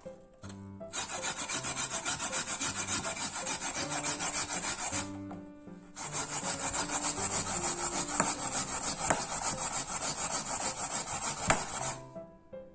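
Raw potato being grated on a hand grater in fast rasping strokes, in two long runs with a short break about five seconds in. The grated potato gives the batter its liquid in place of water.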